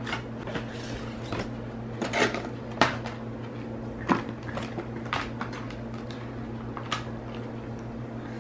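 Clear plastic blister packaging crackling and snapping as it is pulled open, with irregular sharp clicks as the hex key sets in their plastic holders are handled and lifted out.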